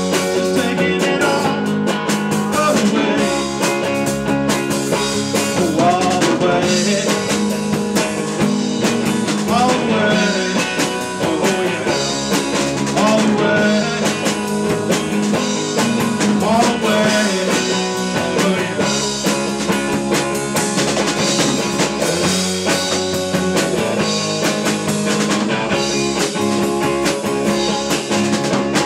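Live rock band playing amplified: electric guitar, electric bass and a drum kit together at a steady loudness, the guitar bending notes.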